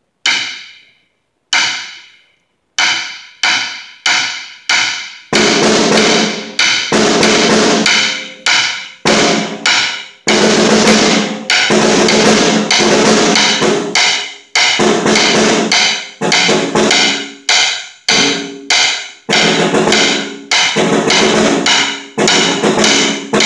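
Solo snare drum: a few widely spaced single strokes, each ringing briefly, then from about five seconds in a busier mix of strokes and sustained rolls.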